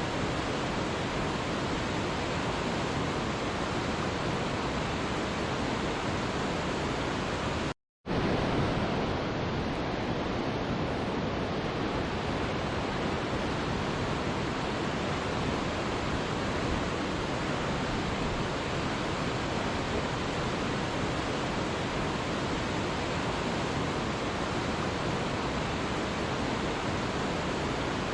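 Waterfall rushing in a steady, even roar of falling water, cutting out completely for a split second about eight seconds in before resuming.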